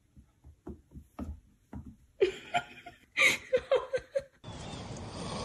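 A person laughing in short rapid bursts, after a few soft taps and clicks. Near the end a steady hiss takes over.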